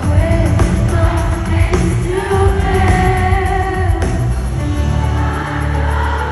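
Live pop concert: a woman singing the lead over a band with heavy bass, with a held low bass note near the end.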